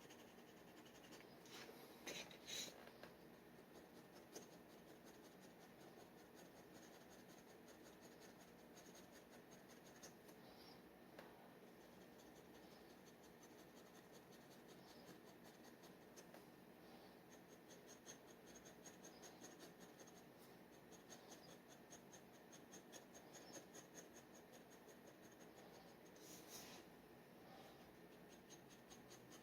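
Faint scratching of a steel G-nib dip pen drawing on paper in short strokes, with a few louder strokes about two seconds in and again near the end.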